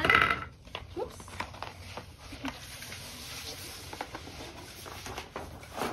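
Large paper posters being handled and rolled: a short paper rustle at the start, then scattered light taps and faint crinkling.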